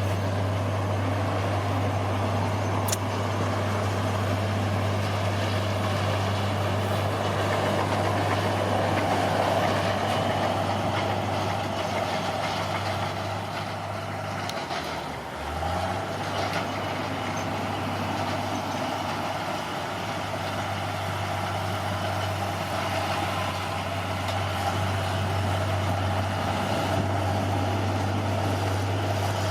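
Bulldozer's diesel engine running steadily under work, a constant low drone that sags briefly about halfway through and then picks back up.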